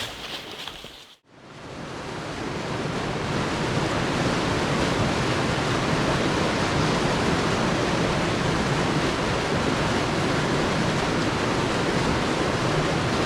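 Steady rushing of running stream water. It fades in over the first few seconds after a brief break and then holds level.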